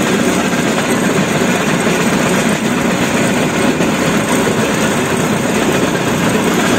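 Railway motor trolley running along the track: its small engine and steel wheels on the rails make a loud, steady running noise that cuts off suddenly at the end.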